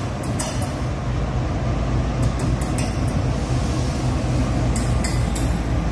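Indian Railways diesel locomotive hauling a loaded freight train past the platform: a steady engine rumble, with sharp clicks from the wheels on the rails from about two seconds in and again near the end.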